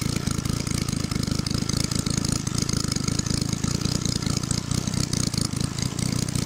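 Scratch-built miniature multi-cylinder overhead-valve spark-ignition model engine running steadily, a fast, even stream of firing pulses.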